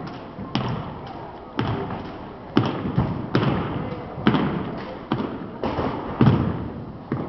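Sharp knocks of drill rifles and drill boots striking a wooden gym floor during an armed exhibition drill routine, about ten irregular strikes roughly a second apart, each echoing around the gym.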